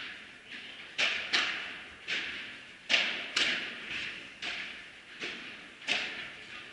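Padel rally: the ball struck back and forth by padel rackets in a quick volley exchange, a sharp pop roughly every half second, each hit echoing through the hall.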